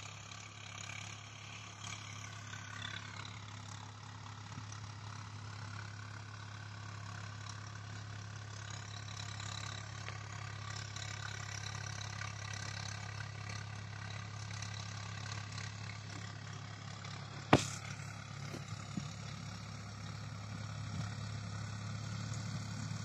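Swaraj 855 tractor's diesel engine running steadily while pulling a laser land leveller. A single sharp click about two-thirds of the way through.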